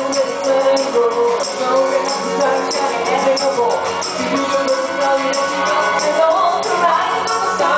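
A song performed live: voices singing over a band, with a steady beat of high, shaken percussion.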